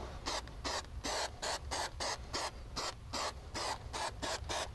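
Aerosol can of spray adhesive hissing in quick short bursts, about four a second.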